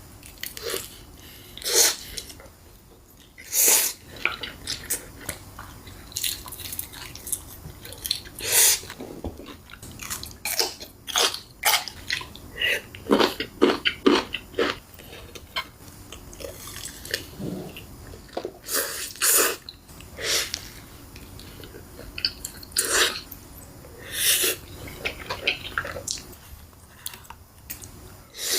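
Close-up eating sounds: a person biting and chewing food, with irregular crunchy bites and wet mouth clicks.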